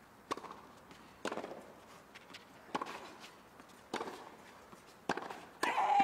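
Tennis ball struck back and forth by rackets in a doubles rally on a hard court: about six sharp pops, roughly one every second, with a short voice rising just before the end.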